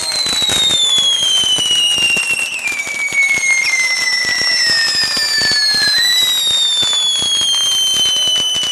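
Sparking fireworks crackling and popping rapidly and continuously, with high whistles that slowly fall in pitch over several seconds; one whistle stops about six seconds in while another keeps sounding.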